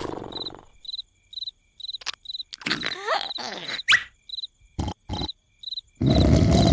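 Cricket chirping in short, evenly spaced pulses about twice a second, as cartoon background ambience. A few sharp clicks and quick rising glides come in the middle, and a loud, rough noise starts near the end.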